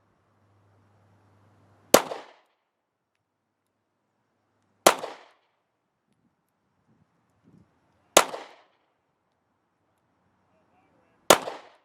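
Four single shots from a SCCY CPX-2 9mm compact pistol firing full-metal-jacket hardball, slow fire about three seconds apart, each a sharp crack with a short echo.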